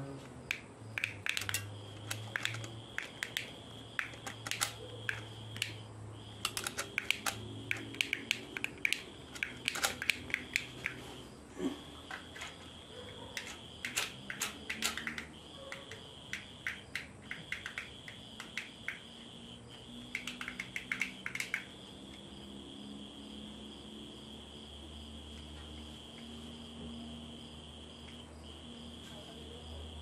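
A cricket trilling steadily, pausing briefly now and then. Over it, irregular sharp plastic clicks and taps from handling a toy remote-control car and its controller, thick for the first twenty seconds or so and then stopping.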